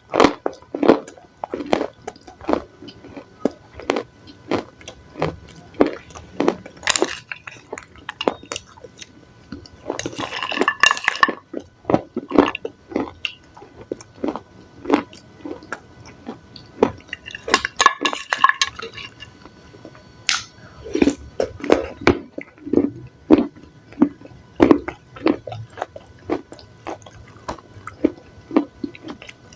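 Close-miked chewing of crunchy salad: short, wet crunches about twice a second, with two longer, louder crunching bursts about ten and eighteen seconds in.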